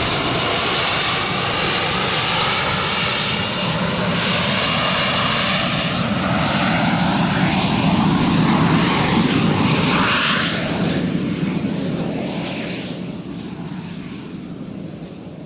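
Panavia Tornado's twin RB199 jet engines running as it taxis past, a steady high whine over a dense rumble. The sound swells about two-thirds of the way through, then fades away near the end.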